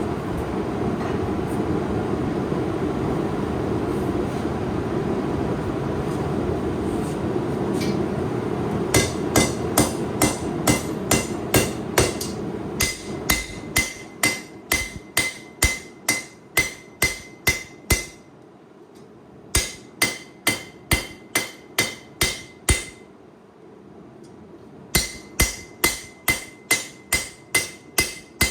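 Steady rushing noise for the first nine seconds or so, then a hand hammer striking hot 8670 carbon steel on the anvil while forging a knife blade. The blows come about two to three a second in runs, with two short pauses, and each strike rings.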